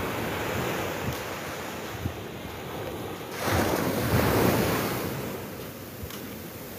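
Small waves breaking and washing up a sandy beach, one wave swelling loudest about halfway through and then fading back. Wind buffets the microphone.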